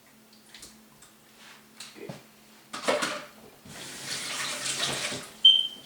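Kitchen tap water running and splashing as a tilapia fillet is rinsed: a short splash, then a steady stream for about a second and a half. It ends with a sharp, ringing clink, the loudest sound.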